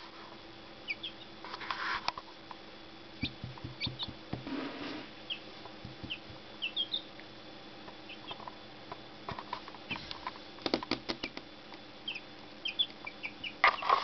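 Young chicks peeping: short, high calls, many falling slightly in pitch, come singly and in little clusters throughout. Soft taps and rustles of the chicks pecking and moving on a towel come in between, with a louder flurry of them near the end.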